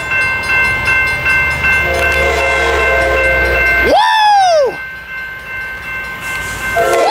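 Amtrak Pacific Surfliner diesel locomotive approaching with a low engine rumble, its horn sounding a chord for about two seconds, then cutting off. The level drops briefly before the horn starts again at the very end.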